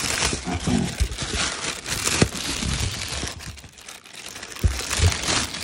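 Clear plastic packaging bag crinkling and rustling as it is handled and pulled off a speaker, thinning out after about three seconds, with a couple of light knocks near the end.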